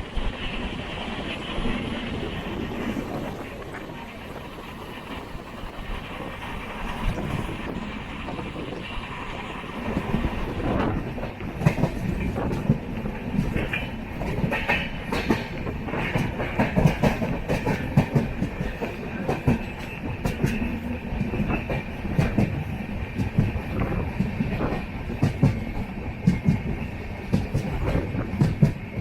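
Passenger train coaches running along the track: a steady rumble with wheels clacking over rail joints. The clacking grows louder and busier about ten seconds in.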